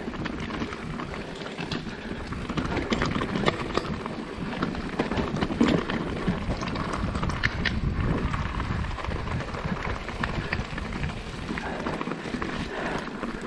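Mountain bike riding down a muddy, rooty trail, heard from an action camera: steady tyre and trail noise with frequent short knocks and rattles as the bike goes over bumps.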